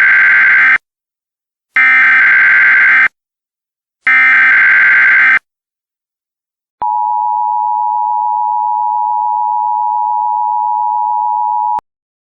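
Emergency Alert System tones: three loud screechy SAME header data bursts, each just over a second long with a second's gap between them, then a steady two-tone EAS attention signal for about five seconds that cuts off suddenly.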